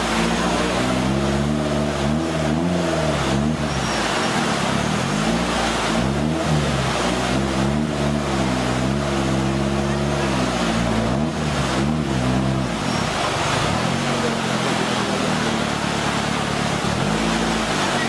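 Off-road competition 4x4's engine revving up and down again and again as it crawls over river boulders, easing off about two-thirds of the way through and revving again near the end, over the steady rush of white water.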